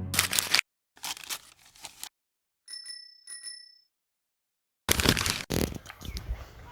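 Two short, bright bell-like dings about half a second apart, between bursts of rustling and handling noise.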